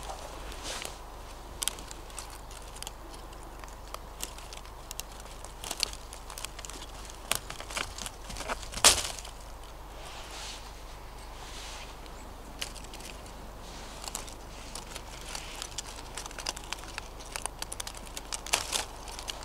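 Knife cutting sprigs of holly: stiff leaves crinkling and rustling, with scattered sharp snaps of stems, the loudest about nine seconds in.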